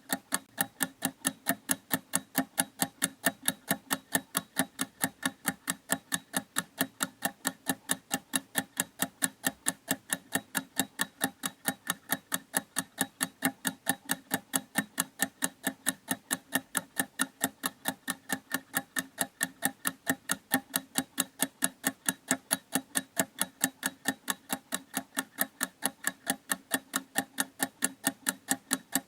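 Clock ticking in a fast, even rhythm, several ticks a second, steady throughout.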